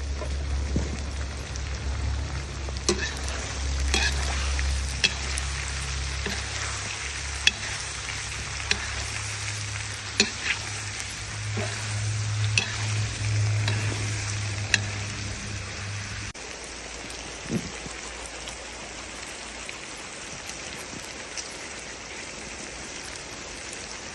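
Plov sizzling as it fries in a pot, with a steady hiss. A utensil stirring it knocks and scrapes against the pot a dozen or so times. A low hum underneath stops about two-thirds of the way through.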